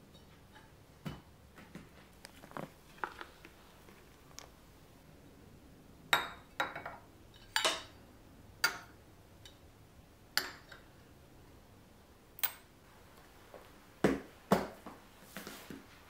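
Stainless steel cocktail shaker, jigger and martini glass set down and handled on a granite countertop: a dozen or so sharp clinks and knocks of metal and glass on stone, each with a brief ring, coming in clusters with pauses between.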